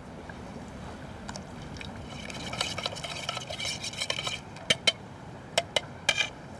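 A spoon stirring honey into an oil-and-lime vinaigrette in a bowl: a wet, scraping swish that builds from about two seconds in, then several sharp clinks of the spoon against the bowl in quick pairs near the end.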